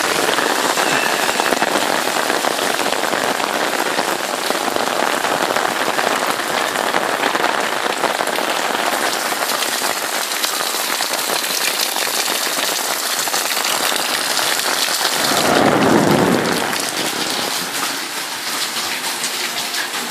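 Heavy rain pouring steadily, a dense even hiss of drops on surfaces. About three-quarters of the way through a louder swell rises and fades over a second or two.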